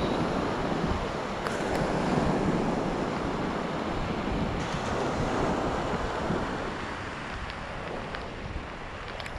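Surf washing onto the beach, with wind buffeting the microphone in a low, uneven rumble.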